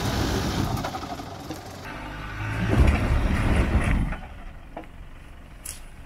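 Off-road pickup truck's engine working on a rough track; its revs rise in a louder surge a little after two seconds in and drop away about four seconds in.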